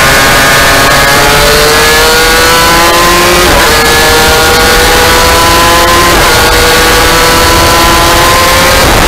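A 2002 Aprilia RS250's two-stroke V-twin engine accelerating hard out of a corner and up through the gears. Its pitch climbs steadily, then drops sharply at each upshift, every two to three seconds. Heavy wind noise rushes over the onboard microphone.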